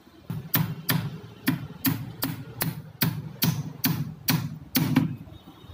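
About a dozen hammer blows, two to three a second, as a carpenter nails together the top frame of a timber column shuttering. Each strike is sharp and ringing, and they stop about five seconds in.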